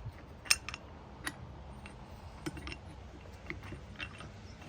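Light metallic clinks and taps, about eight scattered over a few seconds, the sharpest about half a second in, from metal parts and tools being handled while fitting a ball joint into a spindle.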